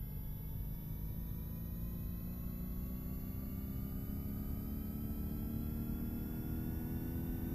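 Daikin RZUR300QY14 air conditioner outdoor unit ramping up after startup: a whine of several tones rising slowly and steadily in pitch over a steady low rumble, as the inverter-driven compressor speeds up.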